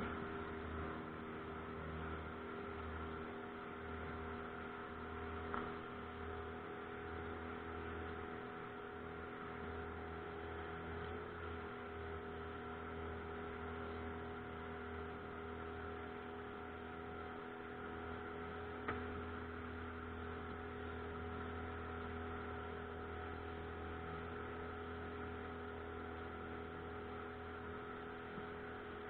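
Pontoon boat's outboard motor running at a steady speed, an even hum with a couple of faint clicks, one about five seconds in and one about two-thirds of the way through.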